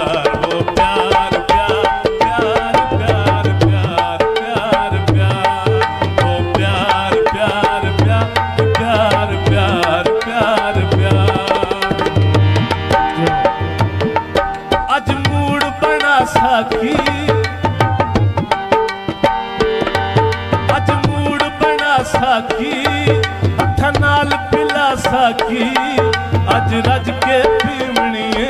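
Instrumental passage of live Punjabi folk music: a hand drum keeps a steady rhythm under melodic instruments.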